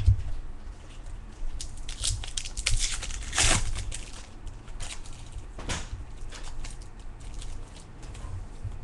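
Trading cards rustling and sliding as they are handled, with several brief papery scrapes, the loudest about three and a half seconds in, over a low steady hum.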